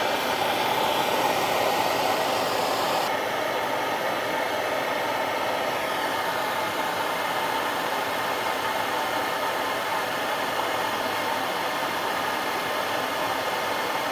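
Handheld propane-type gas torch burning with a steady hissing rush of flame as it heats a steel pick red-hot; the hiss softens slightly about three seconds in.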